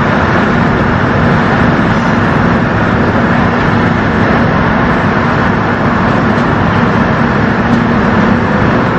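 Steady road traffic noise with a continuous low engine hum.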